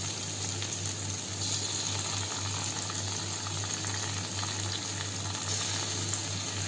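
Chopped onion frying in hot mustard oil in a kadhai, a steady sizzle, with a steady low hum beneath it.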